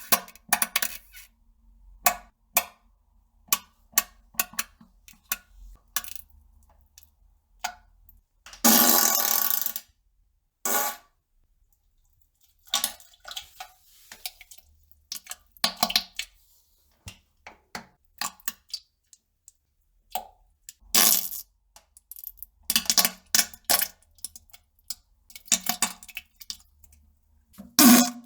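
Someone pooping: many short, sharp plops and crackles in irregular clusters, with a longer noisy burst lasting about a second, about nine seconds in.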